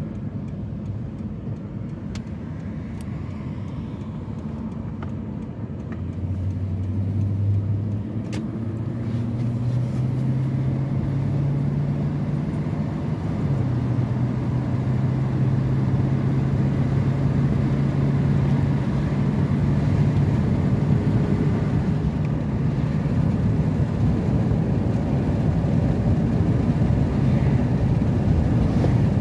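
A car driving, heard from inside the cabin: engine and tyre noise as the car pulls away and speeds up onto the highway. After about six seconds the engine note climbs in a few steps and the road noise grows louder, then holds steady at cruising speed.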